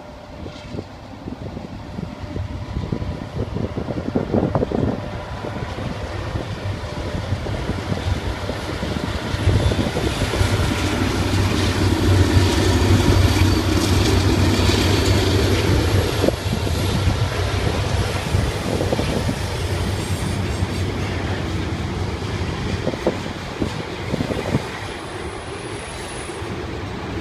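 BNSF diesel-electric freight locomotives (EMD SD70MAC, GE C44-9W, EMD SD70ACe) passing, their low engine drone building to its loudest about halfway through. Then ethanol tank cars roll by with a steady rumble and occasional sharp wheel clacks.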